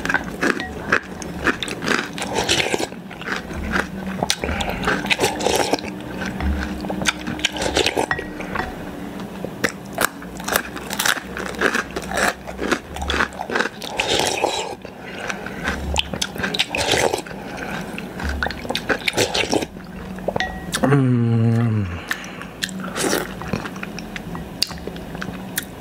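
Close-miked eating sounds: a wooden spoon clicking and scraping in a glass bowl, with wet chewing and crunching. About 21 seconds in there is a short vocal sound from the eater that falls in pitch.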